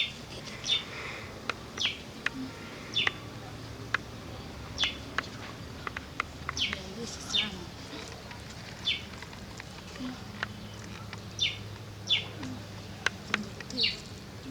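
A bird calling: short, high chirps, each sweeping down in pitch, repeated roughly once a second.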